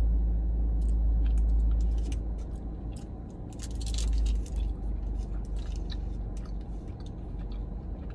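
Someone biting into a dense chocolate bourbon ball, with a louder bite about four seconds in, then chewing with wet mouth sounds and small clicks. A low rumble runs under the first two seconds.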